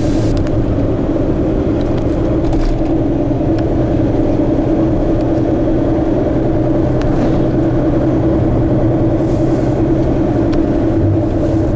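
A car driving at a steady speed: a continuous, even hum of engine and road noise.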